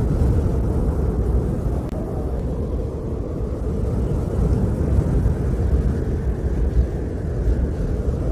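Steady low rumble of outdoor noise with no distinct events.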